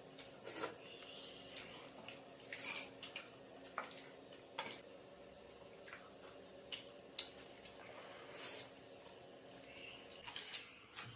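Fast eating: scattered clicks and clinks of dishes and cutlery with short wet squishing sounds, over a faint steady hum.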